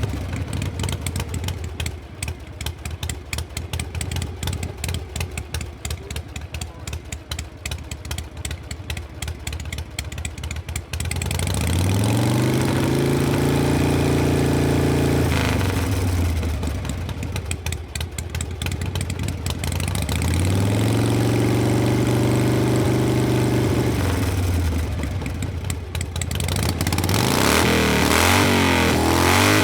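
Harley-Davidson Panhead V-twin motorcycle engine idling with an uneven, pulsing beat for about eleven seconds. It is then revved up and let back down twice, with a slow rise and fall in pitch each time, and blipped quickly several times near the end.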